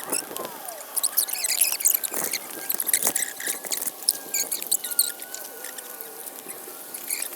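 Footsteps pushing through overgrown brush: leaves rustling and twigs crackling in a dense run of short, irregular clicks.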